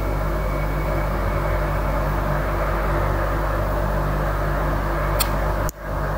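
Steady, low, drone-like hum coming from a building, made of several unchanging tones with a rushing noise over them; its source is unidentified. Near the end there is a short tick, and the drone dips for a moment before it carries on.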